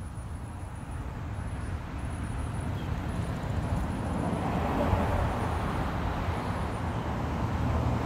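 Low, steady outdoor rumble that slowly grows louder, with a faint high-pitched tone pulsing on and off above it.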